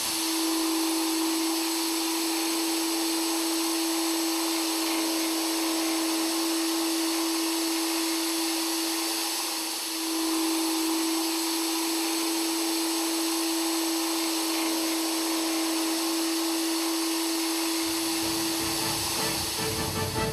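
Dijet Super End Chipper modular-head end mill (32 mm, carbide shank, 250 mm overhang) dry-milling S50C carbon steel at 1,500 rpm: a steady cutting hiss with one steady mid-pitched tone running through it, which breaks off briefly about halfway.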